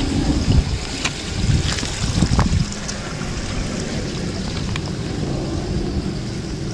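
Wind buffeting the microphone, a steady low rumble, with a few light clicks.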